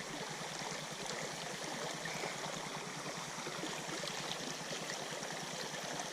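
Creek water running steadily over rocks, a constant rushing hiss.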